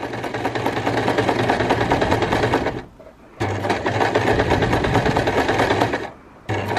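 Janome mechanical sewing machine running in reverse, stitching a tight zigzag up the second side of a four-step buttonhole. It runs in stretches, stopping briefly twice, about three seconds in and near the end, and starting again each time.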